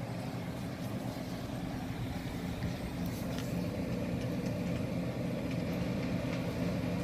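Steady hum of a room air-conditioning unit running, with a few faint ticks about three seconds in.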